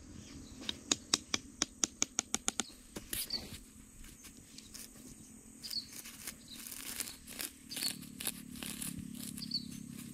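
Scattered rustling and scraping of hands working at grass and ground, in the second half. A quick run of about ten sharp clicks comes in the first few seconds, and a bird chirps briefly now and then.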